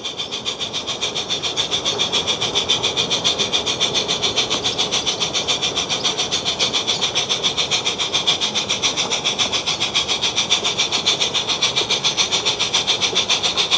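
Battery-powered 16mm-scale model of a Glyn Valley Tramway Beyer Peacock locomotive running with a train of coaches. It gives a steady hissy chuffing at about seven to eight beats a second.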